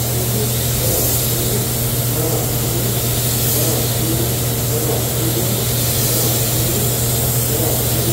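Compressed-air paint spray gun hissing steadily as grey primer is sprayed onto a truck's fender, over a steady low machine hum.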